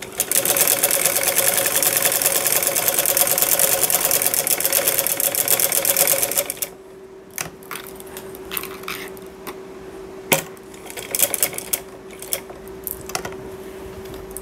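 Sewing machine stitching at speed for about six seconds, a rapid even clatter, then stopping. After that come scattered clicks and rustles as the fabric is handled and repositioned under the presser foot, over a faint steady hum.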